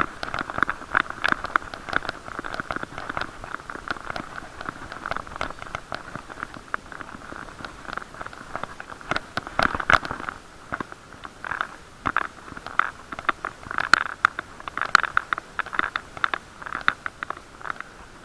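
Bicycle ride heard through an action camera sealed in a waterproof case: a muffled, boxy noise with constant irregular crackling and knocking from bumps and vibration, louder in a few spots.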